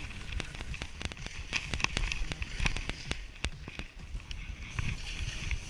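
Skis sliding and scraping over snow, with many sharp irregular clicks and knocks and a low rumble of wind on the camera's microphone.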